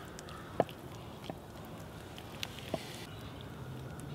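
Hands working a raw whole chicken and a wooden spoon of sauce: a few sharp clicks and light taps, five in all, spread unevenly across a quiet, steady outdoor background.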